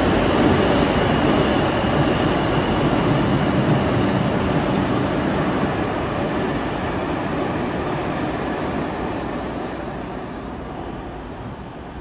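New York City subway train running through the station, loud at first and then fading steadily over the second half as it moves away.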